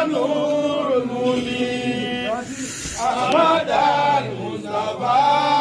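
A voice chanting in long, drawn-out notes that hold and bend, with a brief pause about halfway through.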